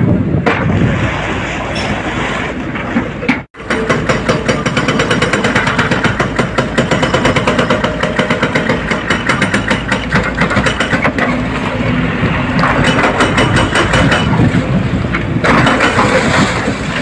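Doosan tracked excavator's diesel engine running under load while the excavator breaks into brick and concrete, with a fast, continuous clattering of demolition and falling rubble. The sound drops out for an instant a few seconds in.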